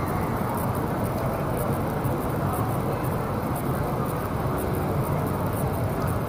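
Steady city background noise: an even low hum of distant traffic, with no distinct events standing out.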